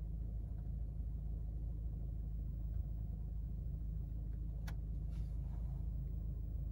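Lexus IS F Sport's 2.0-litre turbocharged four-cylinder idling steadily in Park, a low rumble heard from inside the cabin. About four and a half seconds in comes a single click from the drive-mode selector being turned.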